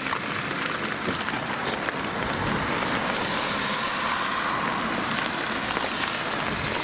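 Steady rain falling, with many small drops ticking close by.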